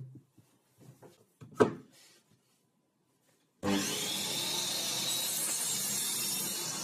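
A sharp knock about a second and a half in, then after a short pause an electric jigsaw starts suddenly and runs steadily, sawing wood.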